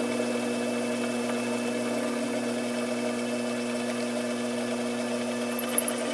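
Sherline vertical mill's spindle running an end mill as it cuts a slot through a metal workpiece: a steady motor hum with a thin high whine and a fine rapid chatter from the cut.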